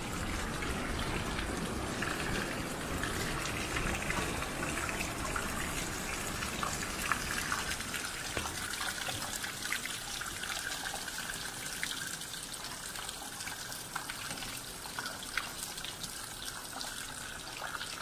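Small waterfall trickling and splashing down a rock face, a steady rush of water with scattered sharp ticks of drips.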